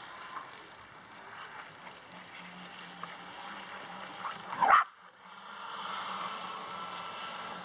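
Two electric RC jet boats on LiPo power running flat out across a pond, heard from the bank as a thin, steady high whine that grows louder a little past halfway. Just before the whine swells there is one short, loud sound that rises and falls quickly in pitch.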